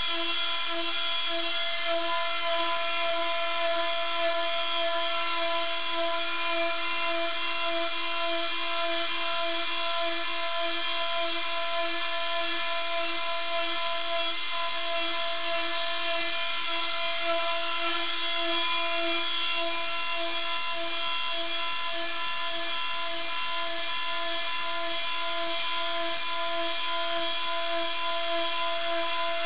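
CNC router spindle whining steadily as it mills a small pulley: one steady stack of high tones, with a faint regular pulsing in the lowest.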